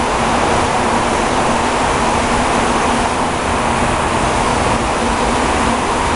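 Zayer KF3000 CNC bed mill running with a steady, loud mechanical whir and hum, with a faint steady tone underneath, as its table traverses along the bed.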